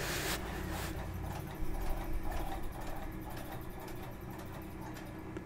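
Chinese shoe patcher leather sewing machine, belt-driven by an industrial motor, running steadily and stitching through layers of thick veg tan leather: a low motor hum with the repeated strokes of the needle mechanism.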